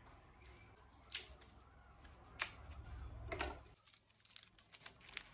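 Faint handling sounds: two sharp clicks a little over a second apart, then light clicks and rustles as kindling for a small fire is set out by hand.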